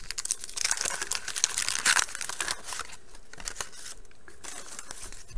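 A 1989 Bowman baseball wax pack being torn open by hand, the wax-paper wrapper crinkling and tearing, loudest about two seconds in; after that, quieter rustling and light clicks.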